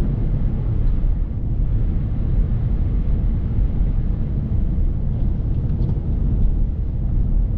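Steady low rumble of a BMW F30 335i driving slowly on a snow-covered road: engine hum mixed with tyre noise from its all-season tyres on the snow, with no revving or change in pace.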